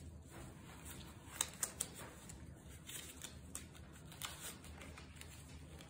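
Faint rustling of a cotton shirt and a few light clicks as nitrile-gloved hands gather the fabric and work a rubber band around it for tie-dye binding.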